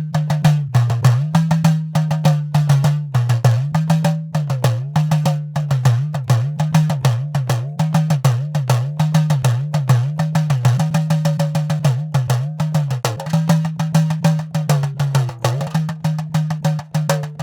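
Idakka, the hourglass-shaped drum of Kerala, struck in a rapid, steady rhythm. The pitch of its tone bends down and back up again and again as the lacing is squeezed and released.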